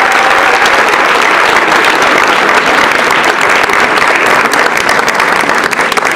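Audience applauding steadily at the end of a dance performance, the last note of the polka music dying away at the start.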